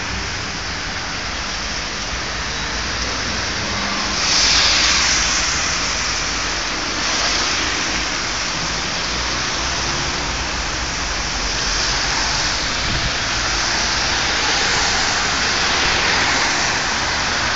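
Steady hiss of rain and car tyres on a wet road, swelling several times as cars pass.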